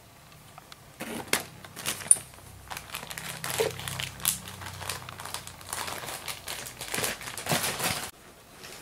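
Irregular crinkling and rustling close to the microphone, starting about a second in and stopping abruptly a little before the end.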